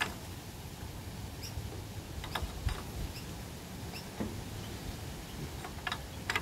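Scattered small clicks and scrapes of hand tools on the generator's metal parts, spaced irregularly, while a tight fastener is worked on.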